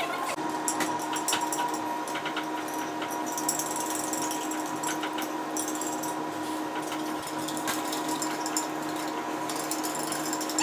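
Steady machine-like hum with scattered clicks and crackles over it.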